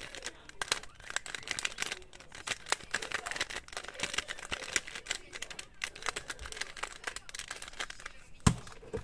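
Rubik's cube being turned quickly by hand: a busy, irregular stream of plastic clicks and clacks as the layers snap round, with one louder, deeper knock near the end.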